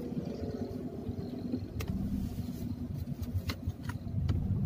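Car engine and road rumble heard from inside the cabin while creeping forward in slow traffic, with a few faint clicks.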